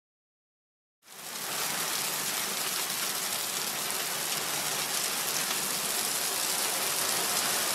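Cartoon sound effect of a load of small stones pouring out and piling up, a steady rushing hiss much like heavy rain. It starts about a second in, after complete silence.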